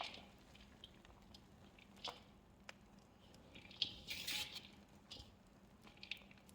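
Hands squishing and crumbling small pieces of wet gym chalk paste: a few separate soft squishes and crunches, the longest about four seconds in.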